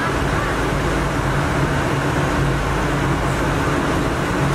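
Star Ferry under way, heard from the lower deck: a steady low engine hum under the rushing wash of water along the hull as the ferry cuts through the harbour waves.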